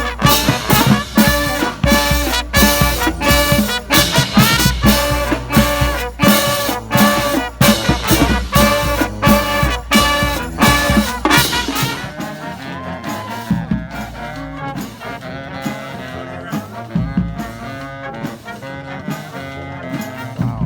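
Brass street band playing lively swing-style music, horns over a steady drum beat; about twelve seconds in the drums drop out and the horns play on more quietly.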